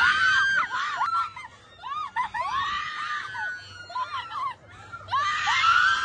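Two women screaming and laughing on a fast amusement-park ride: repeated high-pitched shrieks that rise and fall. They are loudest at the start and again about five seconds in.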